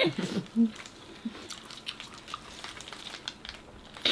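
Faint scattered clicks and crinkles of people wrapping and eating fresh spring rolls at a table, after a voice trails off in the first second. A sharper, louder sound starts right at the end.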